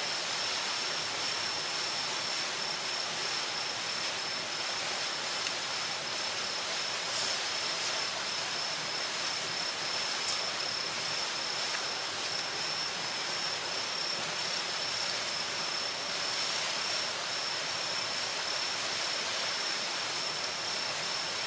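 A night insect, cricket-like, singing one continuous high note without a break, over a steady rushing hiss. A couple of faint clicks are heard midway.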